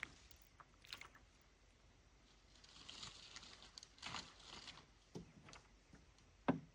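Faint scattered knocks and clicks with a few soft rustling swishes, and one sharper knock near the end.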